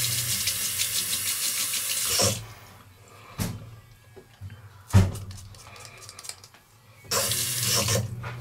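Water from a tap running and splashing into a sink for about two seconds, then stopping. Two sharp knocks follow in the quiet, and the tap runs again briefly near the end.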